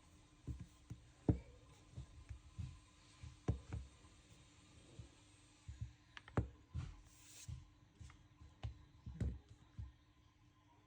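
Faint, irregular soft taps and clicks of smartphones being handled and their screens tapped, a few sharper clicks among them, over a faint steady hum.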